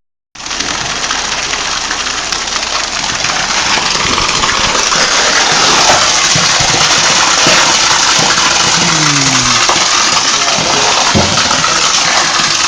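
Concrete truck engine running steadily under a loud rushing noise, growing louder about four seconds in.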